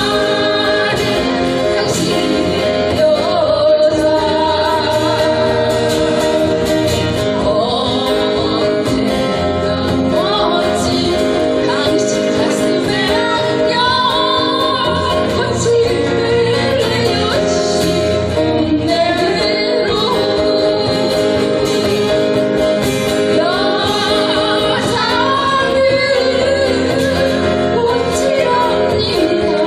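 Live band music with a woman singing the lead vocal over a guitar-led accompaniment and a steady bass line.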